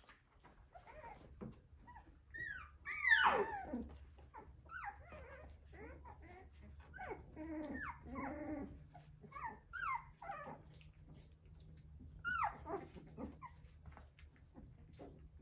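A litter of Australian Shepherd puppies whimpering and squeaking, with many short gliding cries overlapping; two louder, high yelps stand out about three seconds in and again near the end.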